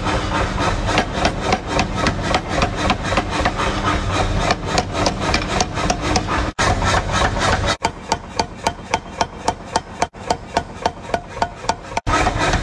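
Power hammer rapidly pounding red-hot steel on its anvil die, a quick even run of metallic blows at about four a second over the steady hum of the machine.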